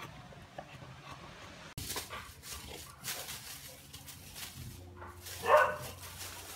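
A boxer puppy gives one short, loud vocal call about five and a half seconds in, over scuffling in dry leaves as it plays with a ball.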